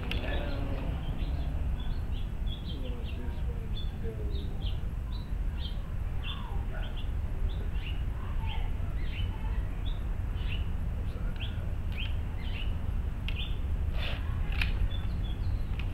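Small birds chirping over and over in short notes, over a steady low rumble, with a couple of sharp clicks near the end.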